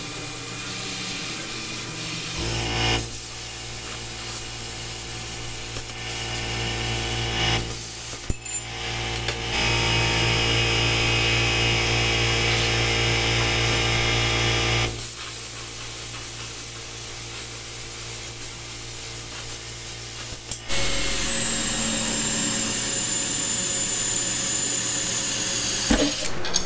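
Handheld plasma cutter cutting steel plate, a steady hiss over the machine's hum, in several stretches; near the end a cordless drill boring holes through the steel plate.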